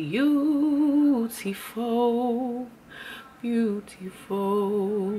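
A woman singing four long held notes with vibrato, each stepping a little lower in pitch, with short pauses between them.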